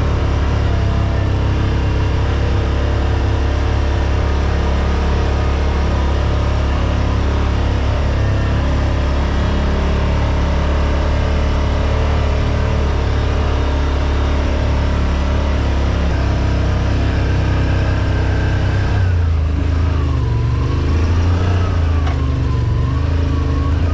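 Side-by-side UTV engine running under way on a trail, a steady drone. Past the three-quarter mark the engine note rises and falls several times as the throttle is worked on and off.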